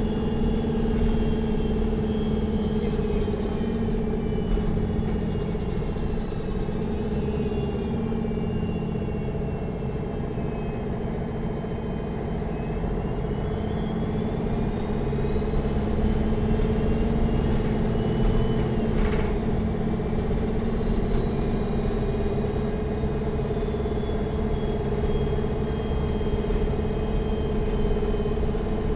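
Neoplan N4516 Centroliner Evolution city bus heard from inside while under way. The engine drones steadily, easing off briefly and then pulling again, with a high whine that rises and falls with speed. One sharp knock or rattle comes about two-thirds of the way through.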